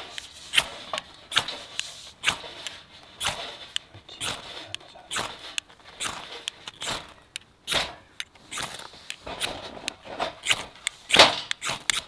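A ferro rod scraped over and over with a metal striker, a short sharp scrape about once a second. These are attempts to light tissue-and-dry-leaf tinder that has not yet caught.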